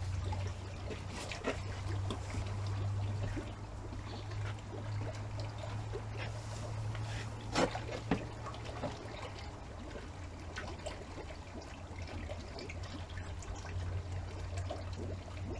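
Hands sloshing and splashing in shallow pond water while a water plant with its root ball is pressed into the substrate, with small drips and two slightly louder splashes close together near the middle. A steady low hum runs underneath.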